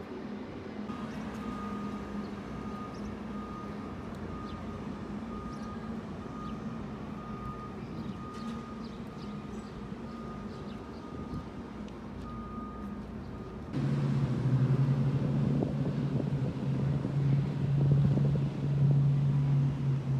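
Motor vehicle engines running in a steady drone, with a faint high beep repeating evenly for most of the first dozen seconds. About fourteen seconds in, the sound changes abruptly to a louder, deeper engine drone.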